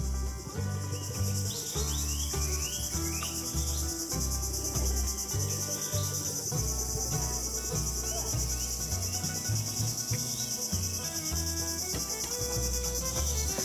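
A chorus of insects, crickets or cicadas, shrilling steadily and high-pitched throughout, with a fine rapid pulse.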